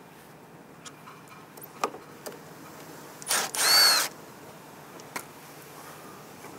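Cordless impact driver run briefly, under a second, to back out a Phillips screw, its motor whine rising and then falling. A few light clicks of handling before it.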